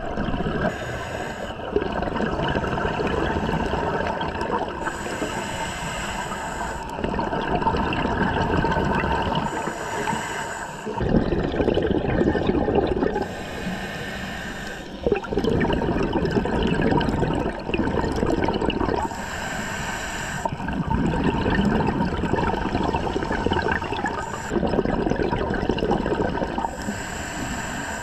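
Scuba diver's regulator breathing underwater: a short hiss on each inhalation alternating with a longer rush of exhaled bubbles, repeating every few seconds.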